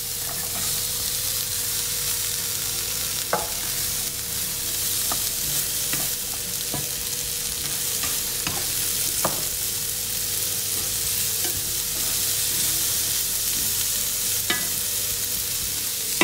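Vegetables and chickpeas sizzling in a hot cast-iron frying pan while a wooden spatula stirs them, with a steady hiss and an occasional click of the spatula against the pan.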